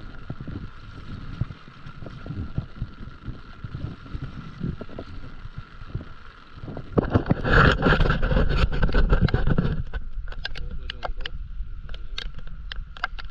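Paddle strokes and water noise on a stand-up paddleboard, heard as low uneven knocks. About seven seconds in, a loud rush of noise lasts some three seconds. Scattered sharp ticks follow near the end.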